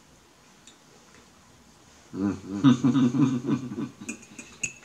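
A man's wordless voice for about two seconds. Near the end a metal fork clicks against a ceramic plate several times.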